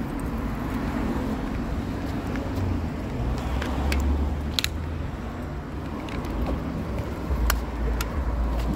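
Street background: a steady low rumble of passing traffic, with a few brief sharp clicks.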